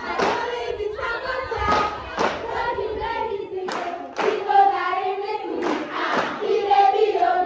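A schoolgirl singing into a microphone, with other voices joining in and hand claps in time.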